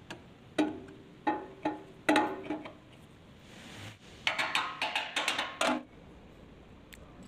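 Background music of short plucked, percussive notes: a few spaced notes, then a quicker run of notes about four to six seconds in.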